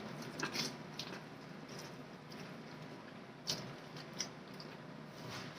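Faint, scattered small clicks and soft squishy sounds of food being handled and eaten, a few seconds apart, with the sharpest click about three and a half seconds in.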